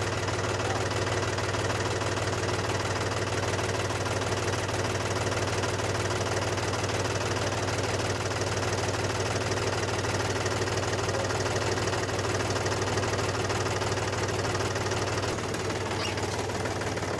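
Small engine of a DIY mini tractor running steadily with a rapid knocking clatter. Its low hum drops away about 15 seconds in.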